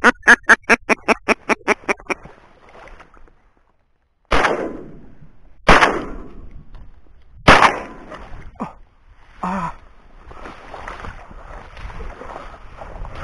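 A duck quacking in a fast run of about a dozen quacks that fade away. Then three shotgun shots, a second or two apart, fired at flushed ducks. Near the end comes a rustling of marsh grass.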